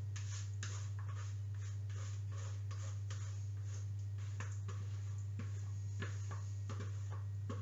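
A utensil scraping leftover egg mixture out of a plastic mixing bowl in short, irregular strokes, over a steady low hum.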